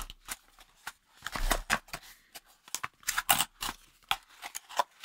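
Small cardboard retail box being opened by hand: irregular scrapes, rustles and taps of the flaps and packaging, loudest about a second and a half in and again past three seconds.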